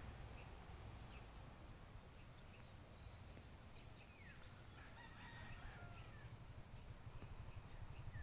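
Faint rooster crowing about five seconds in, with a few short, falling bird chirps.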